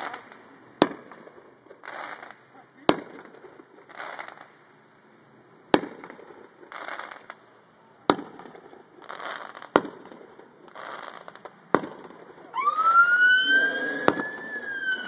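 Fireworks popping: about seven sharp bangs roughly two seconds apart, with short hissing bursts between them. Near the end a long whistling tone rises and then slowly falls.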